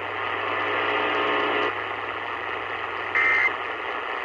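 AM radio static with a low hum and a buzzing tone for the first second and a half. About three seconds in comes one short, shrill data chirp: the first of the Emergency Alert System's end-of-message (EOM) data bursts that close the alert.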